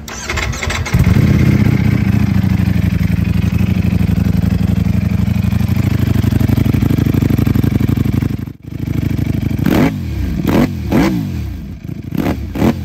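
Ducati Panigale V4 R's 998 cc V4 engine turned over by the starter and catching about a second in, then running at a fast, steady idle through an Akrapovič silencer. Past two-thirds of the way, the throttle is blipped about five times, the revs rising and dropping sharply each time.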